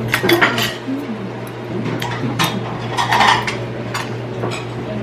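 Metal chopsticks and spoon clinking lightly against a ceramic bowl of noodle soup, several separate clinks, over a steady low hum.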